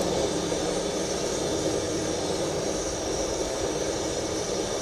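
Spiced biryani cooking liquid at a rolling boil in a large pan: a steady bubbling rush.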